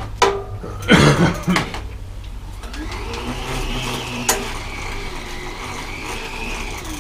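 A short clatter about a second in, then a bicycle wheel spun in the repair stand: a whirring hum that rises as it spins up and sinks again as it slows near the end.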